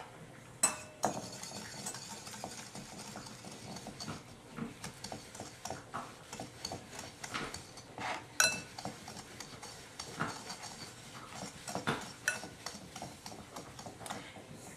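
Wire whisk beating sugar and egg yolks in a ceramic bowl: rapid light ticking and scraping of the metal wires against the bowl, with a few louder clinks.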